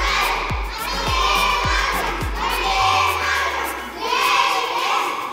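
A group of children singing and shouting together in unison over a recorded backing track with a steady low drum beat, a little under two beats a second. The beat stops about three seconds in, and the children carry on with a loud closing shout.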